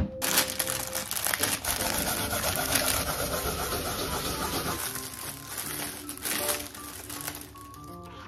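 Kitchen food-prep noise: a dense rustling sound lasting about five seconds, over soft background music that carries on alone after it stops.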